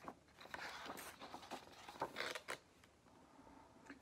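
Page of a hardcover picture book being turned: a faint papery rustle with a few small clicks, lasting about two seconds.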